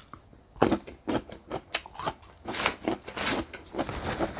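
Close-miked wet chewing of dense grilled giant river prawn meat, a quick run of moist mouth clicks. Near the end come several longer rustles as a paper tissue is wiped across the mouth.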